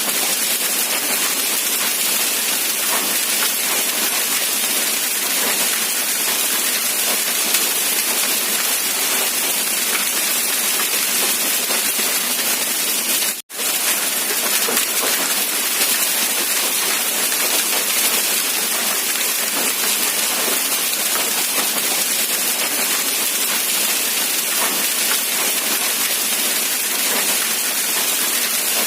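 Steady rain, an even hiss of falling drops with no low rumble. It cuts out for a split second about halfway through.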